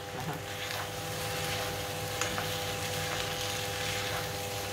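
Rice noodles frying with a steady low hiss in a frying pan, under a steady hum, with a few light taps of the cooking utensils.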